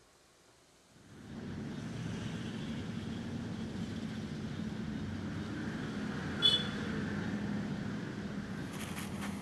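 Steady road traffic noise, a hum of passing vehicles, starting about a second in after near silence. A short high-pitched sound about six and a half seconds in is the loudest moment.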